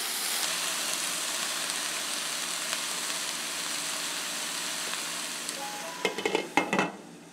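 Cauliflower and onion sizzling in a stainless steel stockpot, with a few spoon-stirring scrapes. About six seconds in, a glass lid clinks several times against the rim as it goes on, and the sizzling turns quieter and muffled under it.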